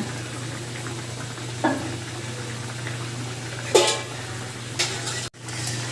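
Thin hilsa fish curry simmering in a pot on the stove, a steady bubbling hiss, with three or four brief knocks of a utensil against the pot.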